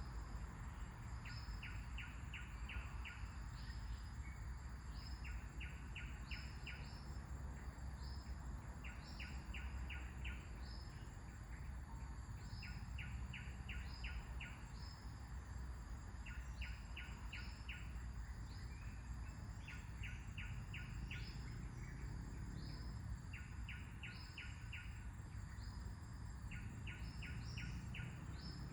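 Birds calling over a low wind rumble: quick runs of five or six short notes repeat every couple of seconds, with higher single chirps in between.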